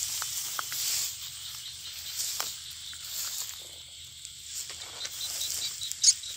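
Night-time field ambience: a steady high hiss of insects, with scattered faint clicks and rustles in the grass and one sharp, brief crack near the end.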